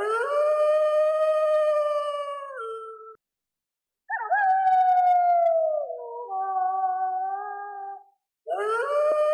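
Wolf howling: three long howls with short silent gaps between them, each opening with a quick upward slide and then held. The second howl slides down and breaks to a lower pitch before stopping, and the third begins near the end.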